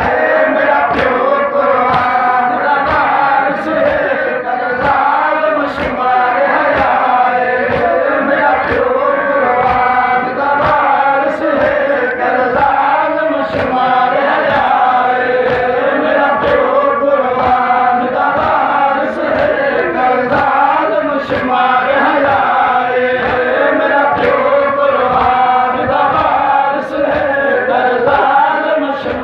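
A group of men chanting a noha, a Shia lament, together, with rhythmic hand slaps on the chest (matam) keeping a steady beat under the voices.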